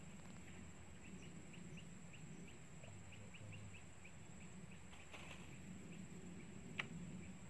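A faint bird call: short, high notes repeated about four times a second for several seconds, over a low steady background rumble. A single sharp click comes near the end.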